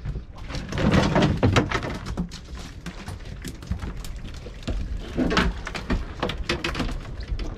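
Irregular knocks, clicks and splashy rustling from reeling a big pollock in alongside a small boat and netting it, loudest about a second in and again near the middle.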